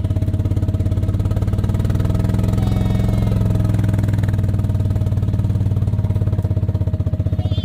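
A vehicle engine running steadily with an even, rapid pulse, unchanging throughout.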